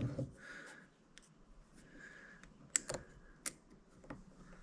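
A small pick working at the snap ring in a longboard wheel's hub: a few faint, irregular clicks with light scraping between them.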